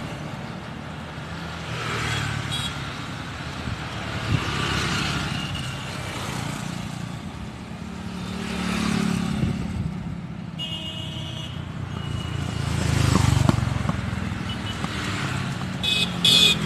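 Motorcycles, scooters and cars passing on a wide city road, their engine and tyre noise swelling and fading as each one goes by, loudest about thirteen seconds in. A brief high tone sounds about ten and a half seconds in.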